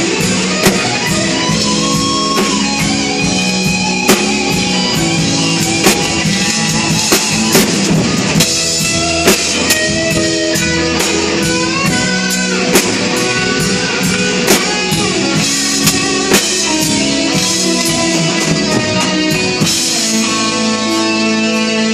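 Live rock band playing: electric guitar over drums, with a steady beat of sharp drum hits.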